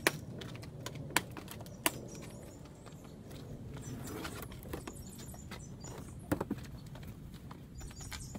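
A large cardboard shipping box being opened by hand: a few sharp clicks and scrapes of cardboard and tape as the top is worked open and the flaps are folded back, over a steady background hum.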